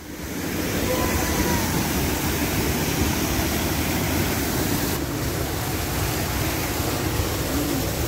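Fast water gushing out of a narrow stone channel beneath a small water mill, a loud, steady rush that swells in the first half second.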